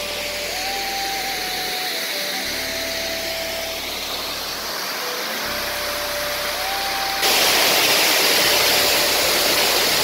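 Waterfall rushing, a steady loud hiss, with a slow background melody of held notes laid over it; about seven seconds in the rush of water turns suddenly louder.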